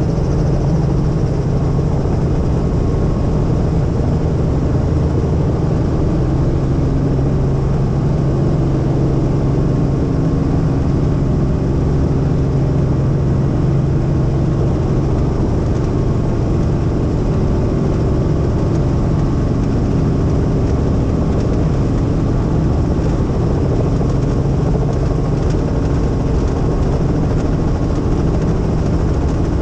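Helicopter in flight: its engine and rotor make a steady, unbroken drone with a low hum.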